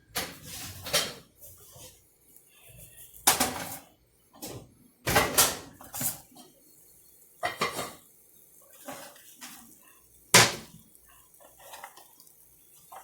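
Cookware clattering: a covered baking dish and its lid knocked about as it is taken out of the oven, in a handful of separate clanks, the loudest about ten seconds in.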